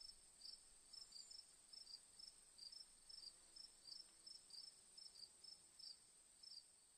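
Faint cricket chirping: short high chirps repeating evenly, about three a second, over a steady faint high tone.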